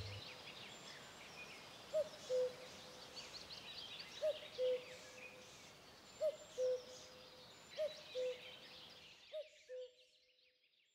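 Common cuckoo calling its two-note "cuck-oo", the second note lower, five times, over faint songbird chatter. The birdsong and the calls fade out near the end.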